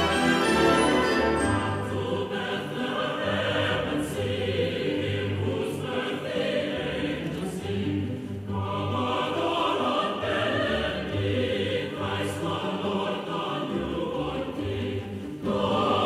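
Music soundtrack: a choir singing with orchestral accompaniment over a steady low pulse, swelling louder near the end.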